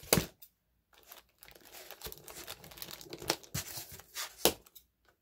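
A plastic zip tie snapping as it is cut with small red-handled cutters, followed by plastic bags crinkling and a few more sharp clicks as the bagged toy parts and ties are handled.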